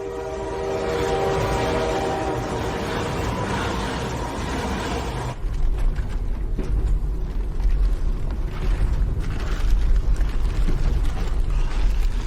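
Train horn sounding one steady multi-note chord for about five seconds, then cutting off as a heavy low rumble and clatter of a train running on the rails takes over.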